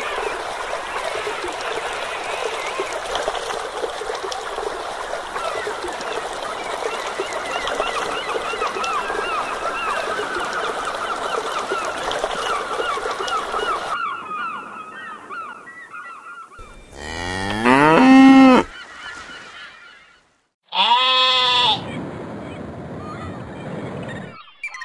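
A thin stream of water pouring from a small tube into a shallow pool, trickling and bubbling, then stopping suddenly about a third of the way from the end. Then come two loud farm-animal calls a few seconds apart, a cow's moo among them.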